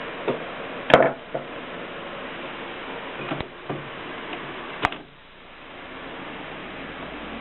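Mignon Model 4 index typewriter mechanism clacking: about six separate sharp strikes spread irregularly, the loudest about a second in.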